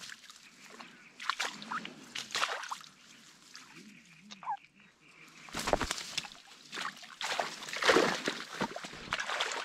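Wet lift net being handled in shallow water among reeds: irregular splashing and sloshing with rustling reed stems and mesh, as caught ide thrash in the net. The splashes are loudest a little past the middle and again near the end.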